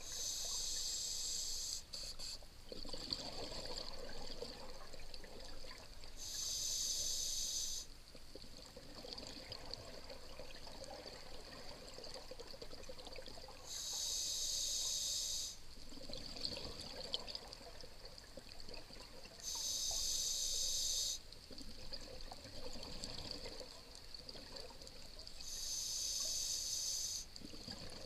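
Scuba diver breathing through a regulator, heard underwater: a loud rush of exhaled bubbles about every six seconds, each lasting one and a half to two seconds, with quieter inhalations between.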